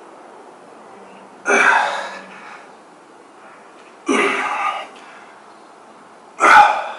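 A man's forceful breaths out, three sharp blasts about two and a half seconds apart, one with each push of a resistance-band chest exercise.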